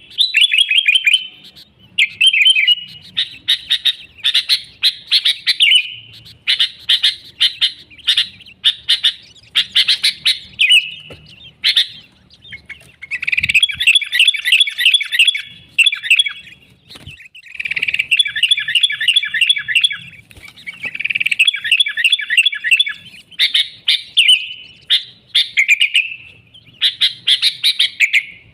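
Sooty-headed bulbul (kutilang) singing vigorously: repeated phrases of rapid chattering notes, each lasting a second or two, with short gaps between them.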